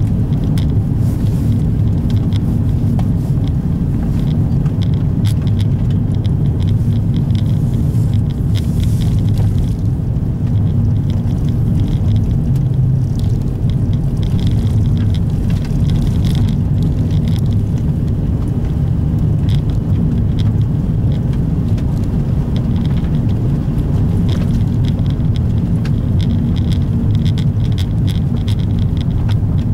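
Opel Astra coupe driving on a snowy gravel road, heard from inside the cabin: a steady low rumble of engine and tyre noise.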